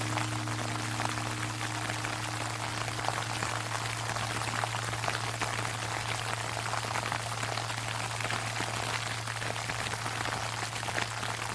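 Sleet pattering on an umbrella as a dense, steady spatter of tiny ticks, with the low hum of a Japanese temple bell (bonshō) dying away beneath it. The bell's higher tones fade out in the first few seconds, while its deep hum lingers.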